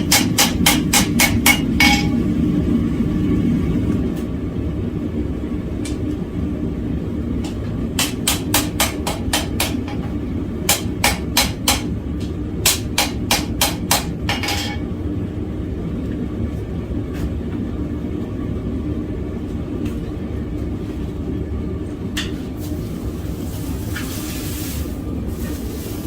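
Hand hammer striking hot steel on an anvil in four quick bursts of ringing blows, about five a second, blending a freshly made forge weld. The strikes stop about halfway through. A steady low rush from the forge runs underneath throughout.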